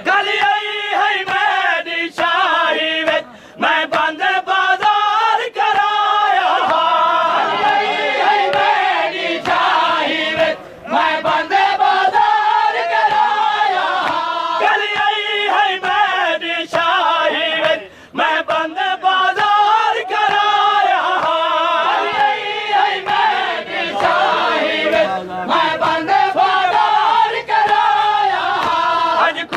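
Crowd of men chanting a Saraiki noha, a Shia mourning lament, in unison, the refrain rising and falling in a slow sung melody. Sharp hand slaps of chest-beating (matam) keep sounding through the chant.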